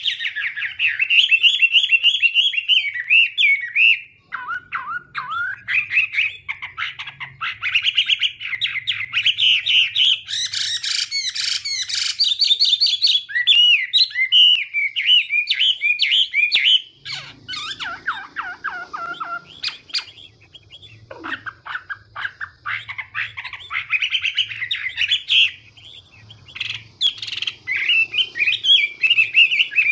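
Chinese hwamei singing a rapid, varied run of whistled phrases, going softer and lower for several seconds past the middle before rising again.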